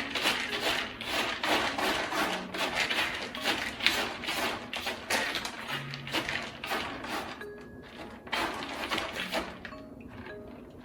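Light background music with mallet-percussion notes such as marimba and glockenspiel, over irregular bursts of rustling noise that ease off in the last few seconds.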